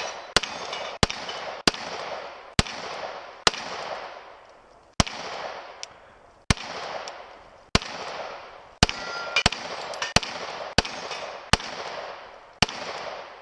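Gunshots fired one at a time, about fifteen of them at an uneven pace of roughly one a second, each followed by a long echoing decay.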